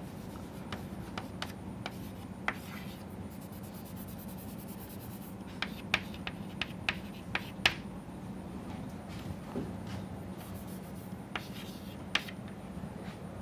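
Chalk writing on a chalkboard: irregular sharp taps and short scratching strokes of the chalk, over a steady low hum.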